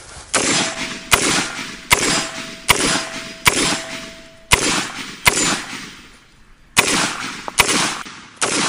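AR-15 rifle firing about ten single shots, roughly one every 0.8 seconds, with a longer pause about two-thirds of the way through. A thin steady ringing tone sits under the first five shots.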